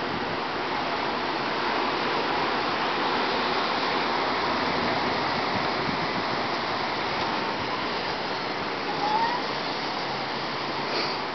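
Storm wind rushing steadily through leafy trees, an even hiss of moving leaves and air.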